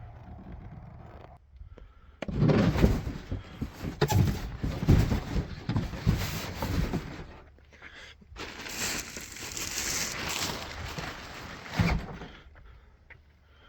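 Packaging being pulled and handled while unboxing a miter saw: cardboard and plastic or foam packing rustling and crackling in two long spells.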